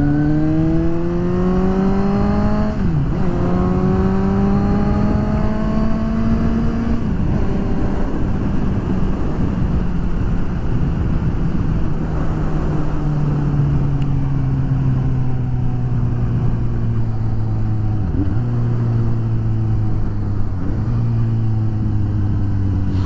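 Suzuki GSX-S750's inline-four engine under way. It climbs in revs, with two quick upshifts in the first seven seconds, then holds a steady, slowly falling note while cruising, with two brief dips in revs near the end. A rush of wind noise runs underneath.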